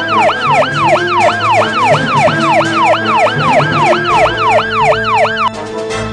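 Siren-like warbling sound effect, about three quick rising-and-falling sweeps a second, over background music. It cuts off suddenly about five and a half seconds in, and the music continues.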